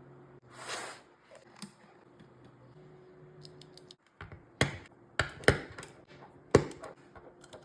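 Keys of a 3D-printed keyboard fidget toy being pressed, giving scattered light clicks and then a few sharp, loud clicks in the second half, after a soft rustle about a second in.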